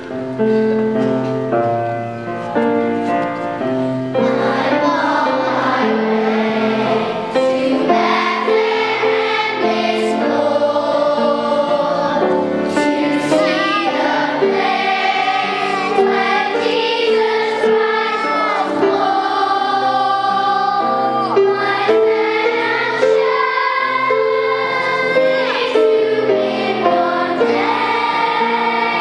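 Children's choir singing a carol with instrumental accompaniment. The first few seconds are an instrumental introduction, and the children's voices come in about four seconds in.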